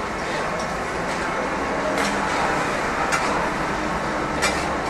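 Steady roar of a hawker stall's wok station, with three sharp metal clanks of a ladle striking the wok, about two, three and four and a half seconds in.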